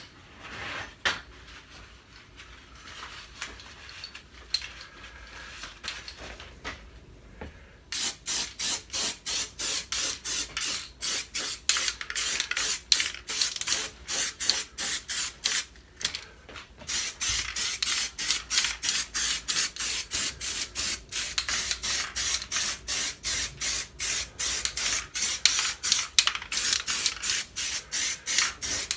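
Aerosol can of grey primer spraying in quick short bursts, about two or three a second, from about eight seconds in, with a short pause around sixteen seconds. Before that, only faint handling sounds.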